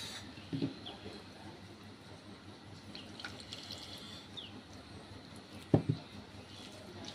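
Dal being poured from a small bowl onto a plate of rice. A soft knock comes about half a second in, and a sharp knock near the end as the bowl is set down on the table.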